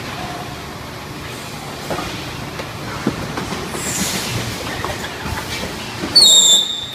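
Thermoform packaging machine running with a steady mechanical clatter and scattered knocks. About six seconds in comes a brief, loud, high-pitched squeal.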